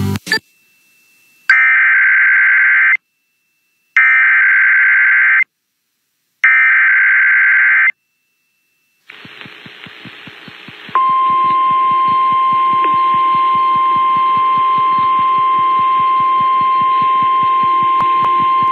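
Emergency Alert System broadcast over FM radio for a National Weather Service severe thunderstorm warning. It opens with three short, identical bursts of the screechy digital data header, with pauses between them. After a moment of buzzing static, a long, steady single-pitch alert tone begins; this tone signals that a warning message follows.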